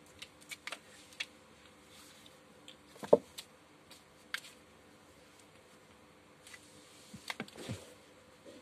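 Kitten playing with a shoelace on a tiled floor: scattered light taps and scuffs of paws and lace, with one louder thump about three seconds in and a short flurry of taps and scrabbling near the end as it rolls over.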